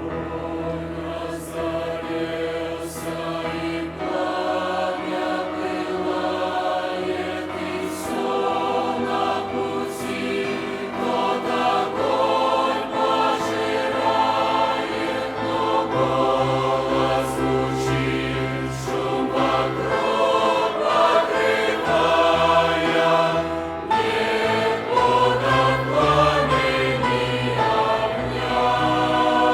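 Youth choir singing a slow hymn in Russian, in parts, over held low chords.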